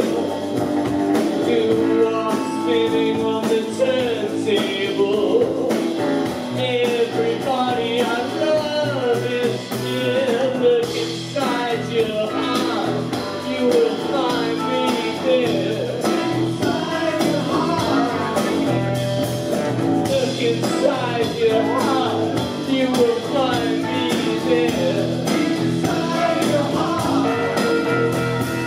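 Live rock band playing a song: electric guitar and drums with a tambourine, and a lead voice singing.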